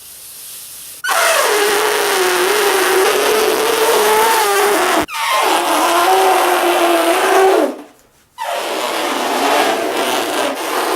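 Man imitating an elephant trumpeting by buzzing his wet lips. Three long, loud blasts, the first dropping sharply in pitch as it starts and then wavering, with short breaks about five and eight seconds in.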